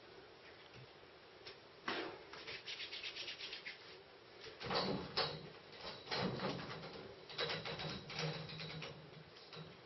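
Metal scaffolding frame creaking and rattling as a person grabs its top tube and hangs his weight from it, with clicks and brief squeaks from the tubes and couplers. A run of quick light clicks comes a couple of seconds before.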